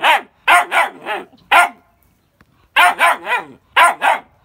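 A dog barking repeatedly: a run of about five barks, a pause of about a second, then another run of about five.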